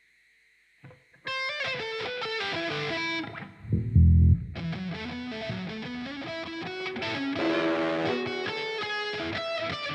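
Electric guitar music starting after about a second of near silence, with a loud low thud about four seconds in.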